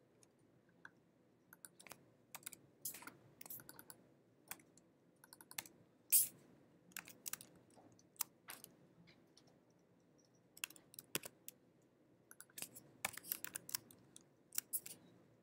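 Faint, scattered computer keystrokes and clicks, single or in short clusters, with one louder click about six seconds in.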